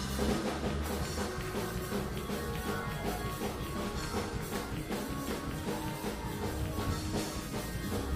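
Live church band music with drum kit and guitar, a steady beat.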